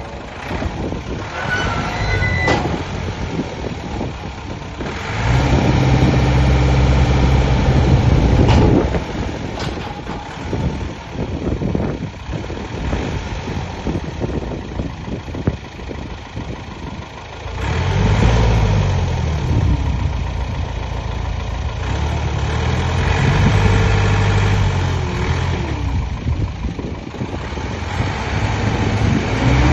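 JCB backhoe loader's diesel engine running, revving up and dropping back several times: about five seconds in, near eighteen seconds and again around twenty-three seconds.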